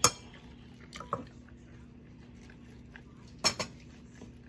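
Metal spoon clinking against ceramic dishes while scooping food: a sharp clink right at the start, two quick ones about a second in, and two more about three and a half seconds in.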